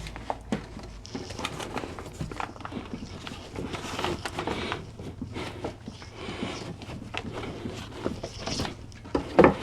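Handling noise from hooping embroidery fabric: rustling of the fabric and tear-away stabilizer, with irregular clicks and knocks from the embroidery hoop as the layers are pressed in and pulled tight. A short, louder sound comes near the end.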